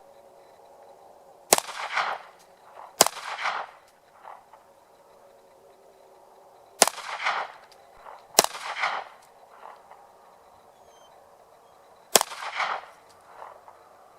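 Ruger LC9s Pro 9mm pistol firing five single shots, spaced about one and a half to four seconds apart, each with a short echo trailing off.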